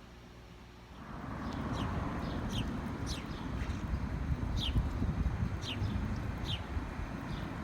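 Small birds chirping, short high calls that drop in pitch, repeated every half second or so, over a steady low noise that starts about a second in.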